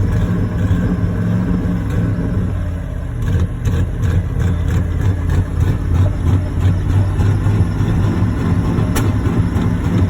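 A 1995 Ford F-150's 302 V8 running unevenly on a bad alternator, as if close to dying: the engine sags about three seconds in and picks back up, with irregular clicks through the second half and one sharp click near the end.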